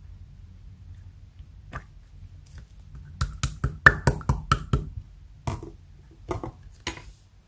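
Clear pearl slime being squeezed and poked by hand, giving a quick run of sharp wet pops and clicks about halfway through, then a few more spaced pops near the end.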